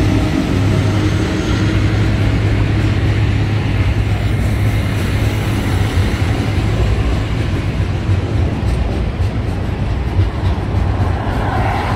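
Container freight train wagons rolling past at close range: a steady low rumble of steel wheels on rail, with scattered clicks near the end, as the last diesel locomotive draws away. A car's tyres hiss by on the wet road about halfway through.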